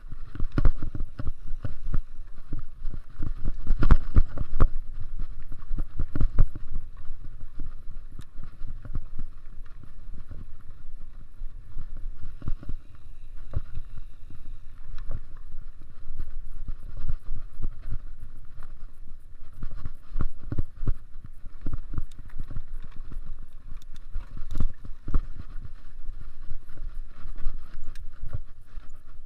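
Mountain bike ridden fast over a bumpy dirt trail: a constant irregular clatter of knocks and rattles from the bike as it hits bumps, over a steady low rumble.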